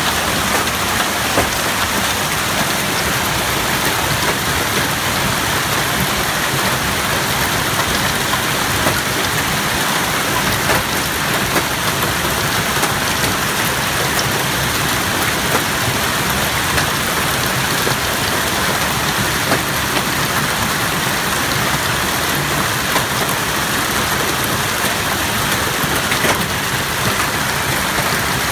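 Golf-ball-sized hail coming down hard: a dense, steady roar of hailstones pelting the ground and parked cars, with many sharper single impacts cracking out through it.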